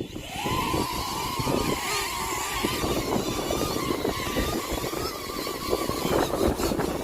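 DJI Neo 2 mini drone's propellers whining, the pitch rising over the first second and then holding with a slight waver, while wind buffets the microphone with a low rumble.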